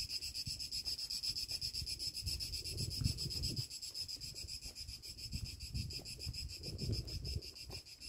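A steady, rapidly pulsing shrill chorus of summer insects. Underneath it are uneven low rumbles from footsteps on a gravel path and wind on the microphone.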